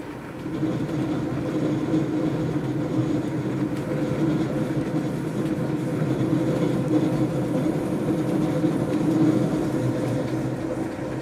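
Diesel regional train running along the line, heard from inside the carriage: a steady rumbling drone with a low hum. It gets louder about half a second in, then holds.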